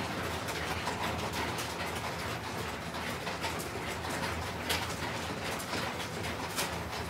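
Mahjong tiles clicking and clacking on an automatic mahjong table as players draw and discard, a busy run of light clicks with a few sharper clacks later on and near the end, over a low steady hum.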